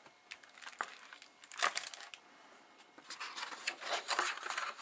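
Paper and dust-jacket rustling and crinkling as a hardcover picture book is handled, its cover opened and its endpaper turned. Short scattered rustles, a louder crinkle about a second and a half in, and denser rustling near the end.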